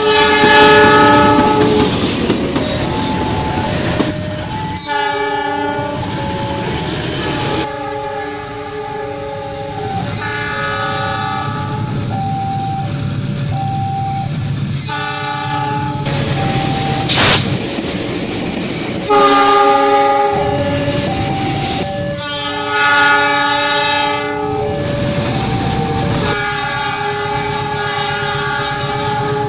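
Indonesian diesel locomotive air horns sounding the semboyan 35 signal: a run of about eight blasts, each a chord of several notes, some short and some held two to three seconds, with short single-note toots between them. Train running noise carries on underneath.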